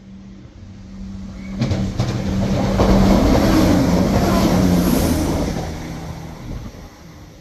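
A Northern diesel multiple unit passing through the station at speed without stopping. The rush of wheels and engine swells sharply about a second and a half in, stays loud for a few seconds, then dies away near the end.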